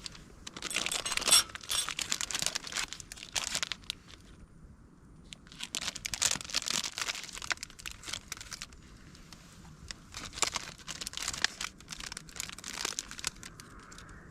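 Crinkling and rustling of something being handled, in three bouts of a few seconds each with short pauses between.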